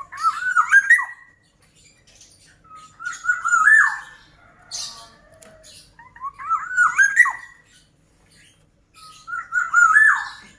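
Black-naped oriole (kepodang) singing: four short phrases of fluty, warbling whistles, about three seconds apart, with fainter high chirps between them.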